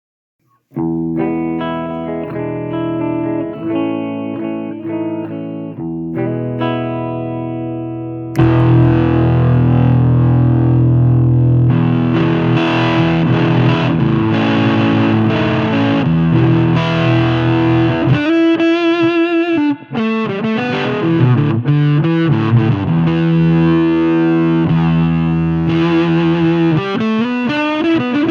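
Electric guitar played through a Cardian Effector C6H8O6 'Vitamin C' fuzz pedal, a fuzz built from FET and transistor stages. For the first eight seconds it plays softer, ringing chords. Then it jumps louder into a thick, distorted fuzz tone, with wavering vibrato bends a little past the middle.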